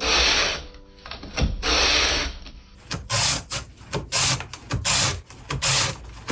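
Repeated rasping, scraping strokes: two longer strokes, then shorter ones at about two a second from about halfway through.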